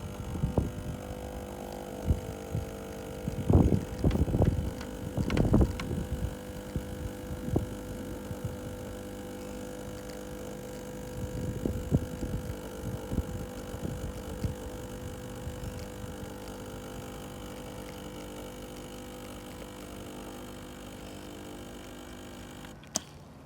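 Espresso machine's pump humming steadily through a shot extraction, with irregular low thumps in the first few seconds and again around the middle. Near the end the hum cuts off with a click as the extraction is stopped.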